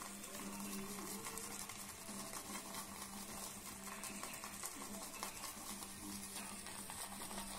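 Omega 81151 boar-bristle shaving brush working shaving soap into a lather: a steady wet, crackly swishing.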